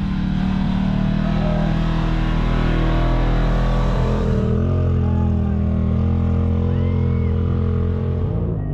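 Side-by-side UTV engine running loud and under load as the machine climbs a steep slickrock slope, its pitch shifting about halfway through.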